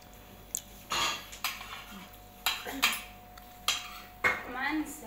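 Metal spoons clinking and scraping against plates and a serving platter as people eat, in sharp separate clinks about every second.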